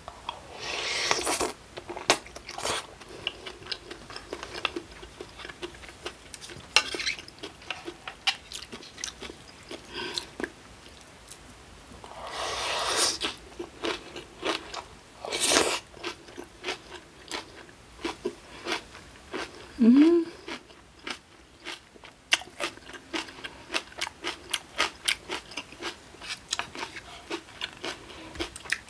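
Close-miked eating: crunchy chewing and biting with many sharp clicks, and two longer slurps of cold broth. About twenty seconds in, a short rising hum of the voice.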